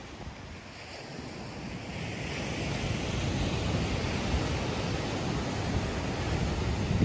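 Ocean surf breaking and washing up a sandy beach, the wash swelling from about two seconds in, with wind buffeting the microphone.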